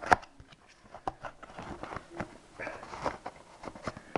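Cardboard box and paper packaging rustling, crinkling and knocking as an HDMI cable is pulled out by hand, with a sharp knock just at the start.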